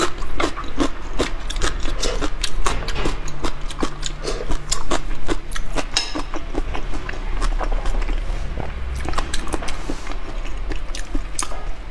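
Close-miked chewing: wet clicks and smacks of a mouth working on food, quick and dense at first and thinning out after about halfway.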